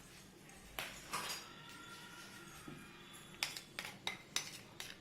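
Spoon knocking and clinking against a mixing bowl of sifted dry cake ingredients: two knocks about a second in, one leaving a short ring, then a quick run of about five taps near the end.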